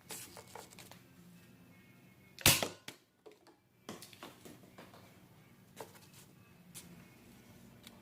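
Nerf blaster being handled with a few plastic clicks, then one sharp, loud shot about two and a half seconds in as a dart is fired, followed by scattered lighter clicks.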